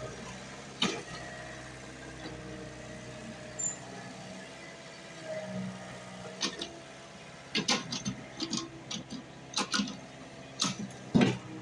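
Excavator's diesel engine running steadily, with sharp knocks and clatter coming in irregularly through the second half.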